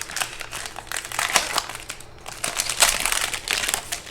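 Plastic trading-card pack wrapper crinkling as it is opened and handled, an irregular crackle that stops just before the end.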